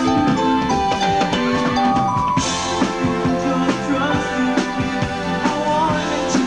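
Live band playing rock music: drum kit beat, guitar and held notes, with a cymbal crash about two and a half seconds in.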